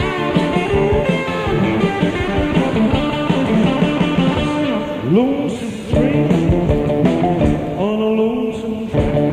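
Blues and rock-and-roll band playing: guitar over bass and drums, with a note sliding up and back down about halfway through.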